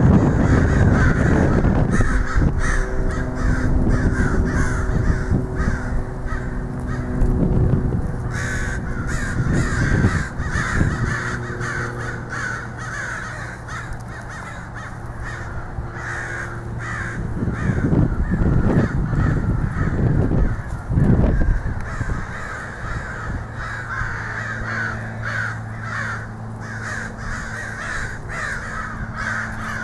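A large flock of American crows cawing, many calls overlapping without pause. A low steady hum runs under them for the first several seconds and comes back near the end.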